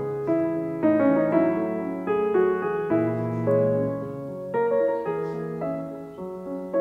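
Background piano music, single notes and chords changing every half second or so.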